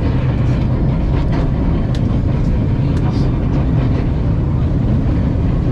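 Small narrow-gauge tourist train running, heard from inside a carriage: a steady low rumble with a few light clicks.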